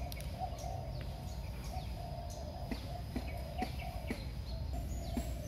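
Outdoor animal sounds: short, repeated low calls mixed with quick, high falling bird chirps, over a steady low rumble.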